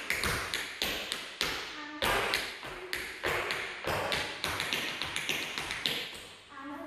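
Tap shoes striking a wooden studio floor in a tap routine: a quick run of sharp, separate taps, several a second, which stops about six seconds in.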